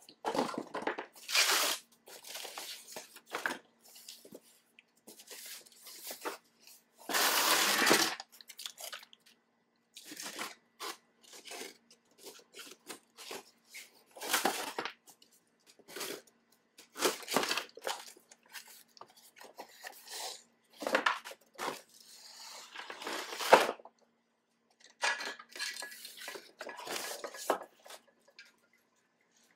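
Cardboard boxes and packaging being handled and shifted, with irregular scrapes and rustles and clinks of the bike carrier's metal parts; one longer scrape comes about seven seconds in.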